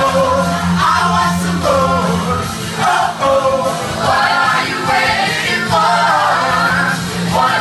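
Pop-rock song playing, with sung vocals over a steady bass line.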